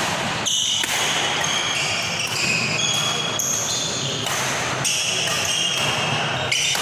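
Badminton rally: rackets hitting the shuttlecock in quick, sharp strikes while court shoes squeak in short high chirps on the floor.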